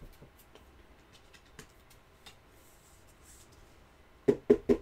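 Faint scratches and ticks of trading cards and plastic sleeves being handled, then three quick low thumps near the end.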